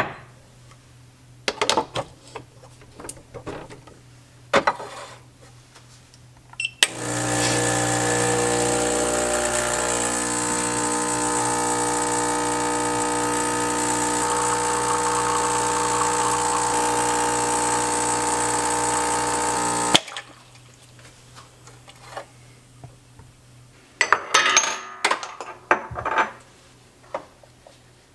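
Gaggia Classic espresso machine's vibratory pump buzzing steadily for about thirteen seconds while an espresso shot is pulled, cutting off with a click. A few knocks and clicks come before it as the portafilter is locked in, and a short clatter follows.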